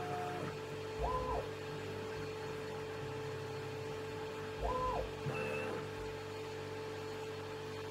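CNC mill axis drive motors whining during an automatic touch-probe cycle. Twice, about a second in and near five seconds, a quick move whines up in pitch, holds and falls away. There are slower, steadier move tones at the start and just after five seconds, all over a steady machine hum.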